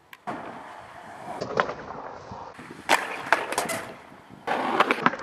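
Skateboard wheels rolling on concrete, broken by about five sharp clacks and slaps of the board and a skater hitting the ground on bailed street tricks.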